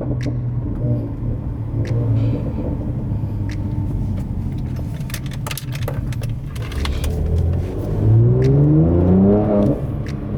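Mercedes-AMG C43's engine running while driving, then pulling under acceleration with its pitch rising about eight seconds in and dropping at a gear change near the end. Scattered light clicks throughout.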